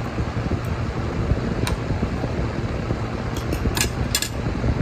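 Fork and spoon clicking against a plate a few times, once about a third of the way in and in a quick cluster near the end, over a steady low hum.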